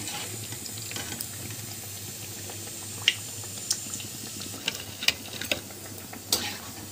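Hot oil sizzling steadily around battered brinjal pakoras frying in a deep pan, with scattered sharp crackles and pops.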